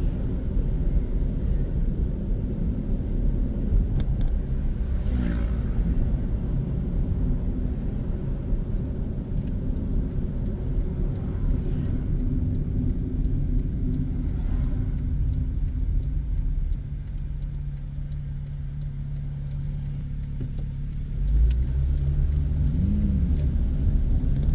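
Car running through city traffic, with a steady low rumble of engine and tyre noise. It quietens for a few seconds, then grows sharply louder about 21 seconds in as the car speeds up again.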